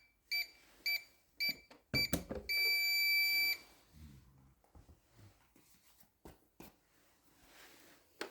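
Toy microwave beeping: five short electronic beeps about half a second apart, a few plastic clicks and knocks, then one long beep lasting about a second. A few faint clicks follow.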